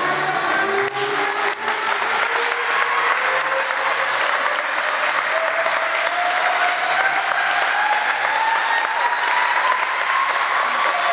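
Audience applauding steadily during a solo baton-twirling routine, with a single long tone slowly rising in pitch underneath.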